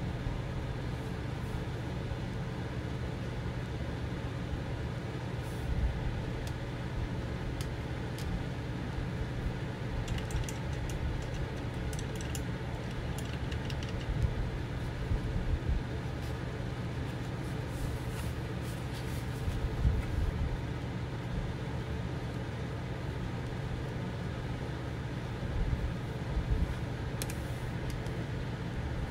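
Steady low hum from a running room appliance, with a scatter of light clicks and taps around the middle and once near the end.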